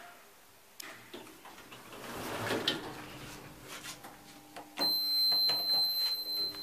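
Kleemann lift doors sliding open with a couple of clicks. About five seconds in, a steady high electronic beep sounds for about two seconds as a floor button in the car is pressed.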